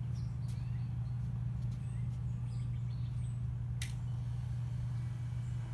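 Moto Guzzi V9 Bobber's transverse V-twin idling steadily, with birds chirping over it and a sharp click nearly four seconds in.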